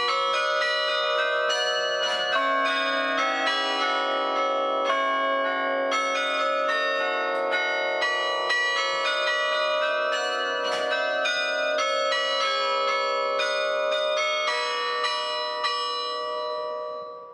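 A 56-bell carillon played from its baton clavier: a tune of many bells struck in quick succession, their long ringing tones overlapping. The music fades out near the end.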